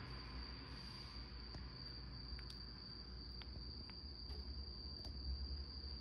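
A steady high-pitched whine or trill holds one pitch throughout, over a low rumble and a few faint ticks.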